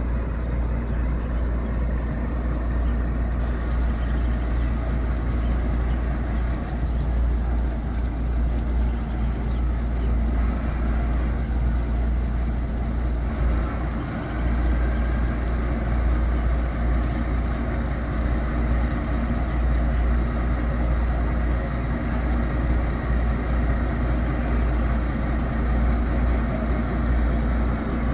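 Steady low rumble of the Irmãos Miranda riverboat's engines running as the boat comes in to port.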